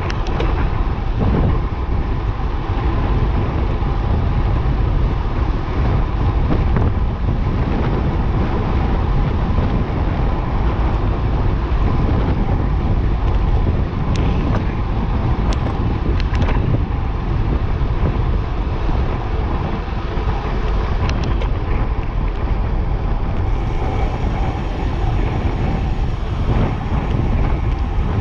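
Steady wind rush on the microphone of a camera on a road bike descending at about 47 km/h, loudest in the low range, with a few brief clicks or rattles.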